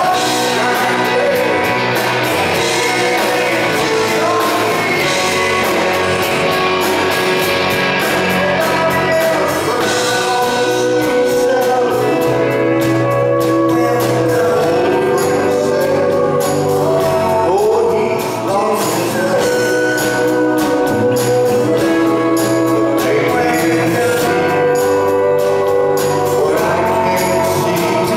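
Live band music with a man singing lead, backed by drums and keyboards, steady and loud throughout.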